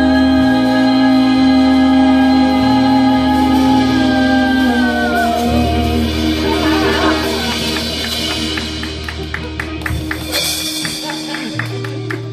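Live band with women singing, holding a long final sung note over bass, guitar and drums that trails off about five seconds in. The band then closes the song with a run of drum hits and a cymbal crash near the end.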